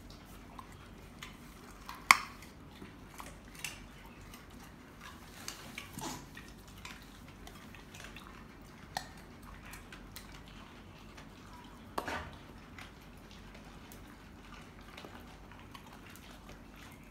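A dog eating pieces of purple carrot off a tile floor: scattered crunches and clicks, the loudest about two seconds in and again about twelve seconds in.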